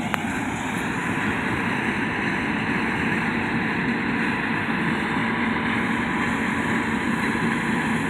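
John Deere S670 combine harvester running steadily as it harvests wheat: an even engine and threshing drone with no change in pitch.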